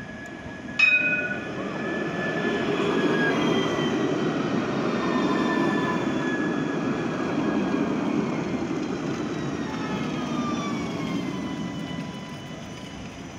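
Nice T2 tram, an Alstom Citadis X05, pulling into a platform and braking to a stop: rolling rumble with electric motor whines that glide down in pitch as it slows, fading near the end. About a second in comes a single sharp strike with a short ring.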